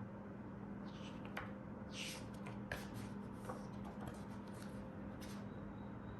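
Handling noises from a full-metal airsoft pistol: a scatter of light clicks and short scrapes over a steady low hum.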